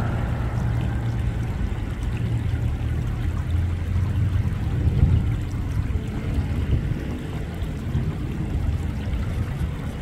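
Water lapping and sloshing at the surface, stirred by a crowd of carp, over a steady low rumble.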